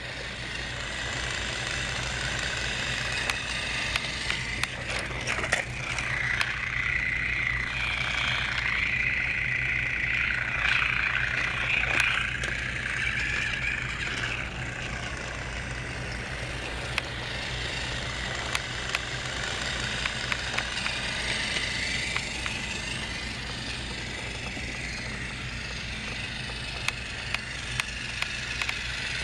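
Motorized Trackmaster toy train whirring along plastic track, its small electric motor and gears giving a steady whine with scattered clicks from the wheels on the track. The whine is louder for several seconds in the middle.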